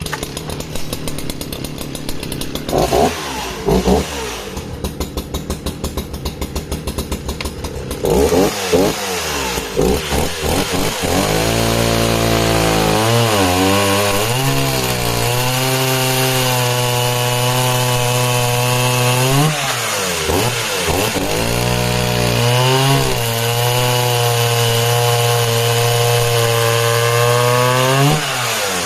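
Sachs Dolmar 119 61cc two-stroke chainsaw idling, blipped twice, then run up to full throttle and cutting through a log with a new full-chisel chain. The engine note dips several times under load and falls back near the end.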